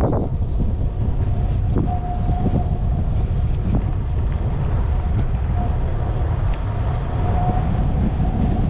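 Wind buffeting the microphone of a camera riding along on a moving bicycle: a loud, steady rumble. A faint, thin hum comes and goes over it.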